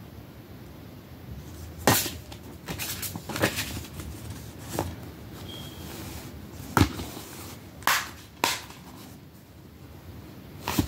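A plastic DVD case and its paper inserts being handled and closed: a string of sharp clicks and knocks over a low hiss, the loudest about two seconds in and around seven to eight seconds in.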